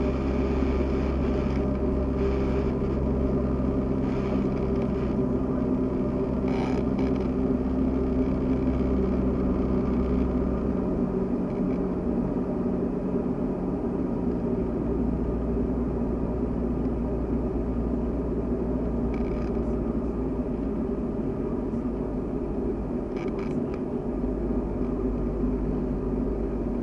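Cessna 172SP's four-cylinder Lycoming piston engine and propeller droning steadily, heard inside the cockpit. The note shifts about ten seconds in and again near the end as power is reduced on the approach.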